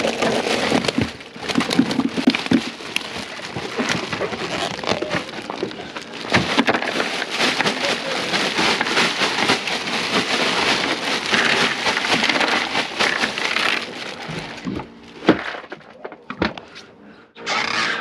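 Bag of ice being tipped into a cooler over fresh-caught fish: ice cubes rattling and crackling together with the plastic bag crinkling, dense and continuous for about fourteen seconds, then thinning to a few scattered clicks near the end.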